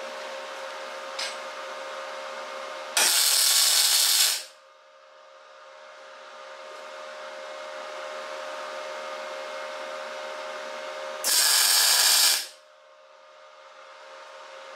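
MIG welder tacking a steel tube onto a pitbike frame: two welds of hissing arc noise, about a second and a half and a second long, about three seconds in and near eleven seconds, each cutting off sharply. A steady hum runs underneath.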